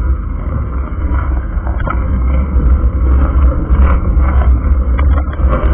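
Wind buffeting an action camera's microphone during a bicycle ride, a steady heavy rumble, with tyre noise on rough, cracked pavement and a few sharp knocks from bumps.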